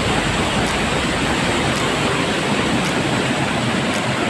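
White water rushing down a rocky stream cascade close by: a steady, even rush of falling and churning water over boulders.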